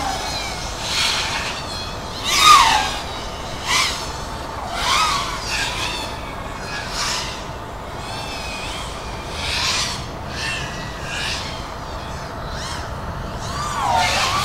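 FPV racing quadcopter motors whining as the drone makes repeated fast passes and throttle changes, the pitch sweeping up and down with each pass; the loudest pass, about two and a half seconds in, drops sharply in pitch as it goes by.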